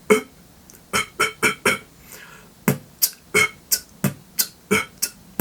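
Beatboxer performing a basic beat, with the snares done as cough snares, throat-driven snare sounds, between kicks and hi-hats. Quick, sharp mouth-percussion strokes come about three or four a second, with a short break about two seconds in.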